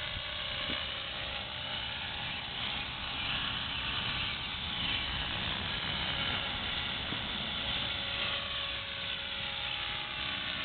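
EXI 450 electric RC helicopter running: a steady high whine from its motor and gears over the rushing of the spinning rotor blades, its pitch wavering slightly as it hovers.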